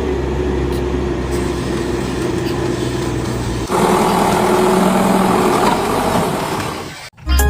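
Radio-controlled model construction vehicles' electric motors and gearboxes running with a steady whirring hum. The sound changes abruptly about halfway through.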